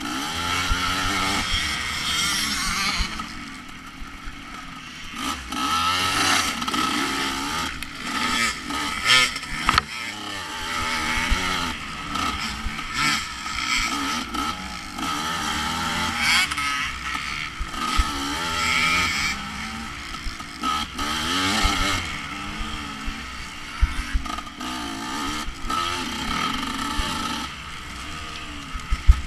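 Off-road racing motorcycle engine under hard riding, its pitch rising and falling again and again as the throttle is opened and shut, with wind noise and occasional knocks throughout.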